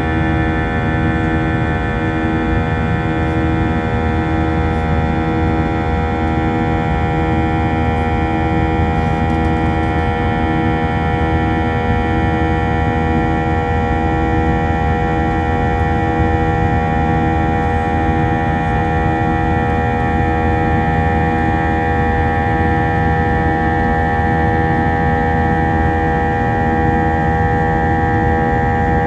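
Airbus A321-231's IAE V2500 jet engines heard from inside the cabin: a loud steady drone made of many held tones, with a slow regular pulsing in the low part of the sound.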